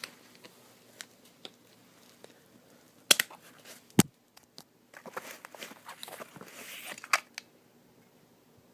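Handling noises: scattered sharp clicks and knocks, two loud ones about three and four seconds in, then a few seconds of rustling and clatter that end in another sharp click.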